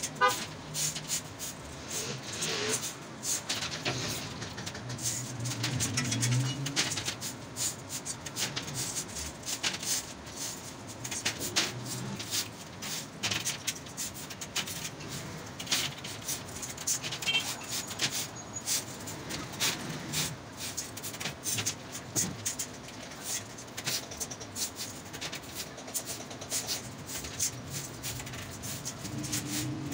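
Crimped steel wires clicking and clattering irregularly against a steel weaving jig as they are pulled and laid by hand, many small sharp ticks in quick succession.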